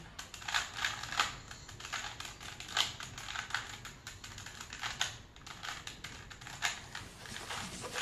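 A 3×3 Rubik's cube being turned by hand in quick moves, its plastic layers clicking irregularly, several clicks a second.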